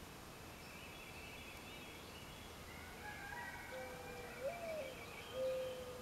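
Mourning dove singing its territorial and courting perch coo: a long low coo that slides up and falls back, then a shorter steady coo near the end. Other birds sing faintly in the background with thin, high calls.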